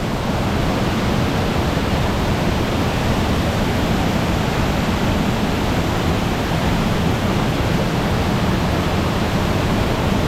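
Waterfall on a creek: falling water making a steady, unbroken rush.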